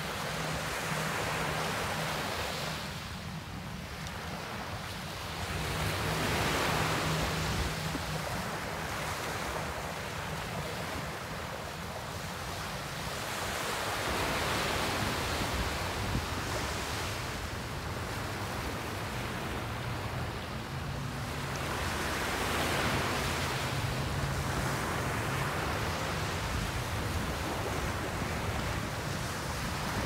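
Small, calm waves breaking and washing up a sandy beach, the surf swelling and easing every several seconds. A steady low hum runs underneath.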